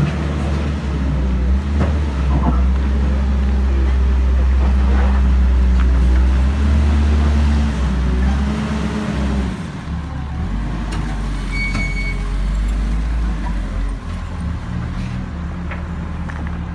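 A motor vehicle engine running close by, its pitch rising and falling a little, loudest in the first half.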